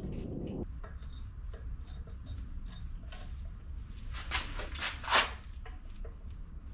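Handling noises from work on an engine: scattered light clicks, then three short scrapes or rubs a little past the middle, over a steady low hum.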